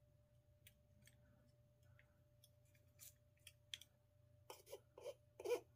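Faint clicks of small parts being handled, then three short scrapes about half a second apart near the end, over a faint steady hum: hands working a small tube of adhesive into a fishing-rod section.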